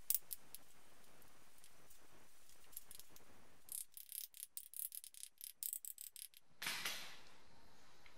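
Light metal clicks: one sharp click at the start, then a quick run of small clicks for about three seconds, ending in a short scrape. These are the sounds of hands and a hand tool working on the aluminium front timing cover as it is fitted to a BMW M20 straight-six engine block.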